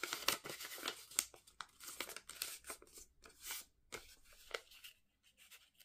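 Folded paper slips being unfolded and handled, crinkling and rustling in short, irregular crackles that die away in the last second or so.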